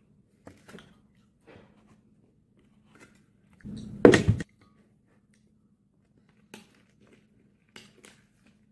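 A glass bowl slid across and set down on a table, with a sharp knock about four seconds in. Around it come light scattered clicks of a plastic spoon against glass and soft chewing sounds.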